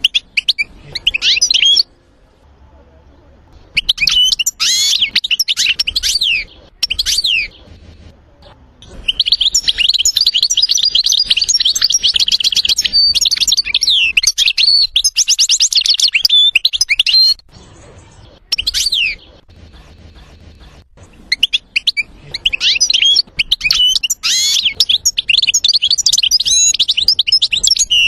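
European goldfinch singing: bursts of quick twittering and tinkling notes separated by short pauses, with a long run of fast trilled notes in the middle.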